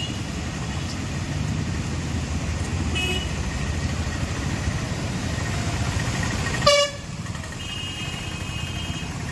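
Road traffic running steadily along a flooded street, with vehicle horns: a short high beep about three seconds in, a loud brief honk about two-thirds of the way through, and a longer high horn near the end.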